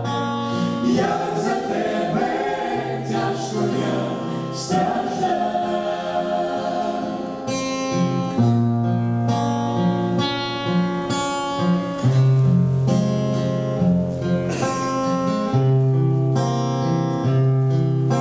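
Choir and acoustic guitar playing a gospel song, the voices holding long notes over strummed chords.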